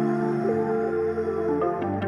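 Background music: soft ambient, new-age style with held chords.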